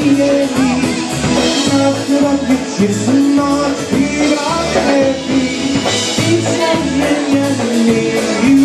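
Live polka band playing a polka, with a steady, evenly repeating bass beat under the melody.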